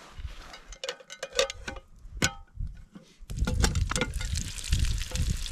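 A few light metallic clinks and knocks of cookware, then, from about three seconds in, a steady, louder sizzle of onions and mushrooms frying in butter in a pot over a campfire.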